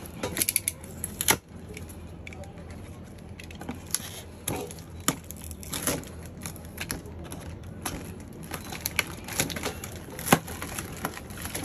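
Utility knife cutting through a corrugated cardboard shipping box and its packing tape, with irregular sharp cracks and scrapes as the blade snags and the cardboard flaps are pulled and bent; the sharpest crack comes about a second in and another near the end.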